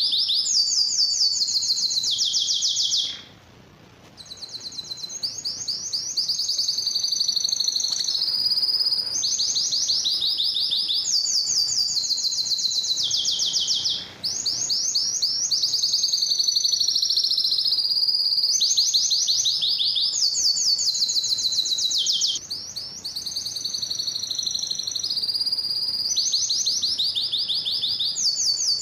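Male domestic canary singing: a continuous song of fast trills, each a run of rapidly repeated high notes, switching to a new trill every second or two, with a brief pause about three seconds in.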